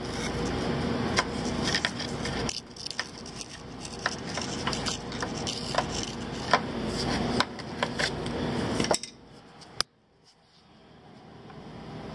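Metal hand tool clicking and scraping against metal under the vehicle over a steady rushing noise; the sound drops away suddenly near the end.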